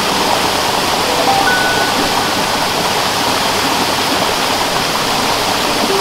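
Steady rushing of water cascading down a rocky waterfall, with a few faint held notes of background music about a second in.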